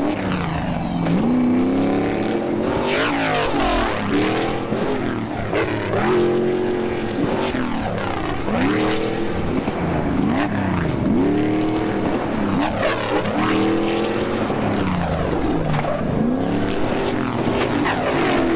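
Stadium Super Trucks' 650-horsepower LS V8 engines racing past at full throttle one after another, each engine note rising and then dropping in pitch as the truck goes by.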